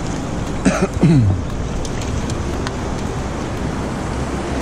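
Steady rush of fast creek water below a dam, with wind on the microphone. About a second in, a short voice-like sound falls in pitch.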